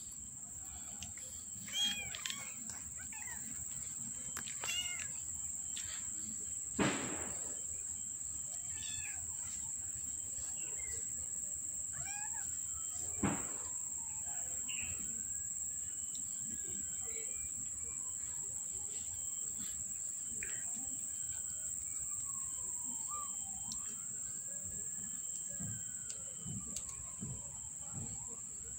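Kittens mewing with short, high calls in the first few seconds, and two sharp knocks about 7 and 13 seconds in. A slow, rising-and-falling wail comes and goes through the second half over a steady high-pitched whine.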